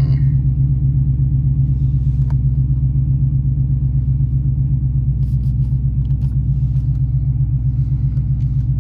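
Dodge Challenger's engine idling steadily, heard inside the cabin as a constant low hum. A few light clicks come about five to six seconds in.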